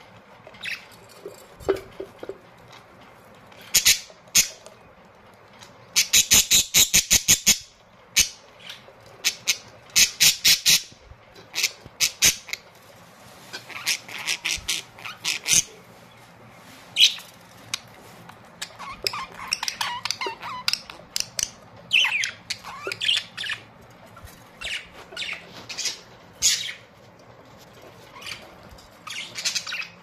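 Caged budgerigars chirping and squawking in short, sharp, high calls that come in scattered bursts, including a fast run of repeated calls about six seconds in.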